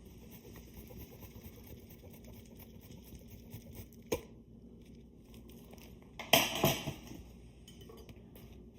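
Quiet kitchen handling sounds as the sandwich is put together: a single sharp click about four seconds in, then a short crackly rustle, the loudest sound, about six seconds in.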